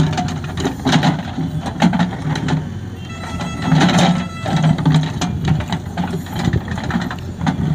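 JCB backhoe loader's diesel engine working under load as the backhoe bucket digs into soil, with many sharp knocks and clanks and a short whine a few seconds in.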